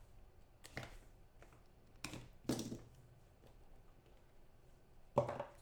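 Four short scrapes and rustles of cardboard and cards being handled as a small trading-card box is opened and its stack of cards taken out. The loudest comes near the end.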